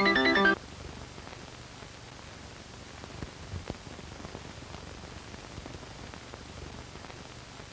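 Piano music cuts off about half a second in, leaving a steady hiss with faint scattered crackles and ticks.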